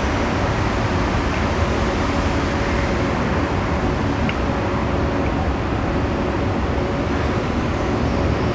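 Rubber-tyred Line 15 monorail train (Bombardier Innovia Monorail 300) running past on its elevated concrete guideway: a steady noise with a faint steady hum underneath.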